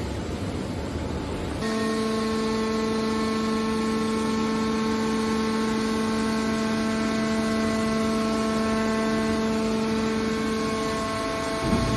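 Hydraulic scrap-metal baler running as its press lid closes on scrap steel wire. The electric-motor hydraulic power unit gives a rumbling mechanical noise at first. About one and a half seconds in, a steady pitched hum with overtones sets in and holds almost unchanged until near the end.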